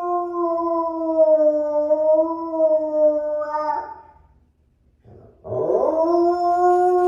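A dog howling: one long, steady howl that breaks off about four seconds in, then after a short pause a second howl that slides up from low and holds.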